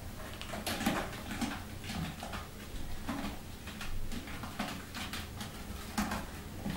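Kittens scrambling and batting about on a carpeted cat tree: irregular soft thumps, scuffs and claw scratches, several a second and unevenly spaced.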